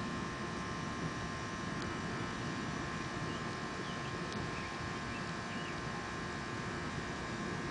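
Distant thunder rumbling on without a break through a lightning storm, under a steady faint hum. A few faint high chirps come through in the middle.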